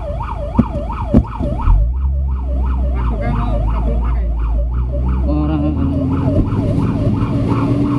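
Fire truck siren on a fast yelp, its tone sweeping up and down about three times a second, heard from inside the cab over the truck's engine. Two short knocks sound in the first second and a half.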